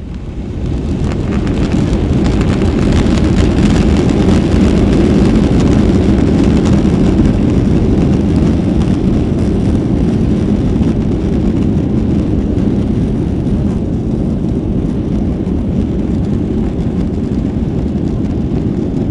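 Airbus A330 jet engines spooling up to takeoff power, heard from inside the cabin as the airliner rolls down the runway: the sound swells over the first second or two, then holds as a loud, steady, deep rumble.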